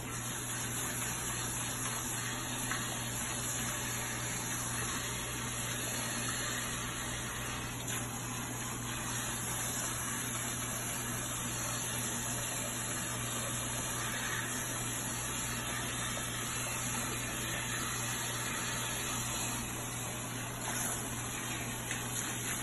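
Water spraying steadily from a salon shampoo-bowl hand sprayer onto a client's head and splashing into the basin as the quick weave is rinsed out.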